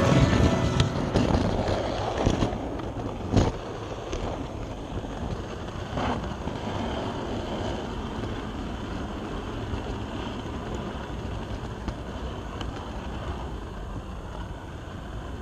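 H0 scale model train running along its track, heard from a camera riding on the train: a steady rolling rattle and rumble with a few scattered clicks, slowly getting quieter.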